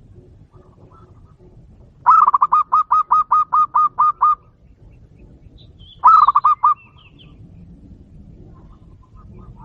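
A dove calling: a rapid, evenly spaced run of about eleven short hooked notes, then a shorter run of about five a couple of seconds later. Faint high chirps come in between.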